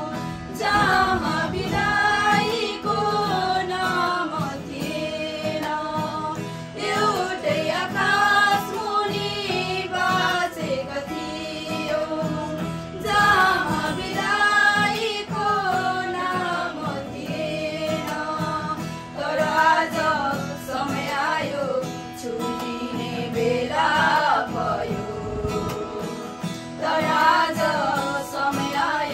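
A small group of voices, mostly women's, singing a Nepali farewell song together, accompanied by a strummed acoustic guitar.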